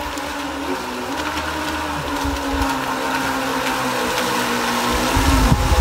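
Remote-controlled four-propeller stainless-steel net-pulling boat running toward the shore, its motors giving a steady whine that wavers slightly in pitch. It gets louder as the boat comes closer, with a low rumble swelling near the end.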